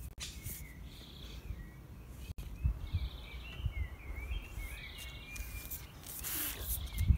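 Outdoor ambience: many short, high chirps over an uneven low rumble with a few dull thumps, and a brief hissing swell near the end.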